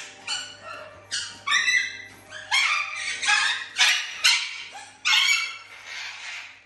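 Small dogs barking and yipping in quick, repeated bursts, over background music.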